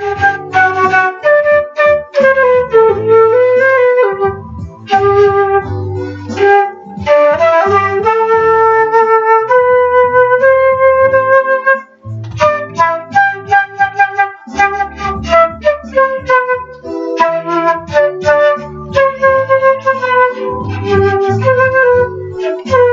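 Instrumental music: a flute-like lead melody over low bass notes, with a short break about twelve seconds in.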